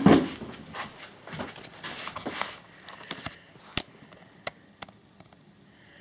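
Rustling and light clattering of plastic laptop parts being handled, busiest in the first couple of seconds, then a few separate sharp clicks.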